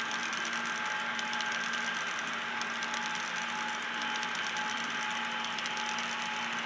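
Loaded HO-scale model coal hopper cars rolling steadily along the track: an even rolling clatter of small metal wheels with a rapid, light clicking over the rail joints and a steady faint hum.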